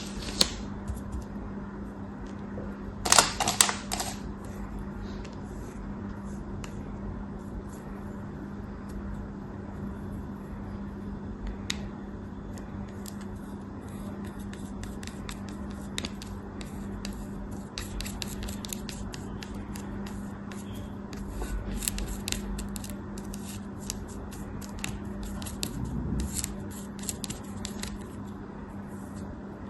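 Knife cutting through crumbly material, soap or kinetic sand, giving many small crisp crackles and ticks, with a louder burst of crunching about three seconds in. A steady low hum runs underneath.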